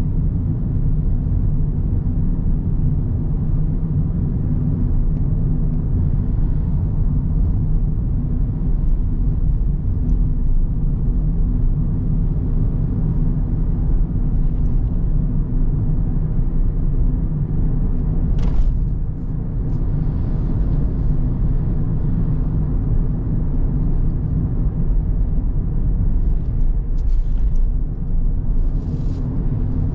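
A car driving on the road: a steady low rumble of engine and road noise, with one brief sharp sound about 18 seconds in and a couple of short hissy sounds near the end.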